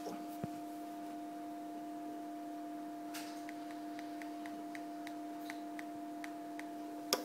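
A steady electrical hum made of two tones. From about three seconds in comes a run of faint, evenly spaced short ticks, about three a second, and there is a sharper click near the end.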